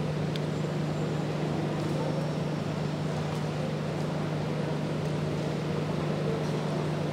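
A steady low hum over an even background noise, unchanging throughout.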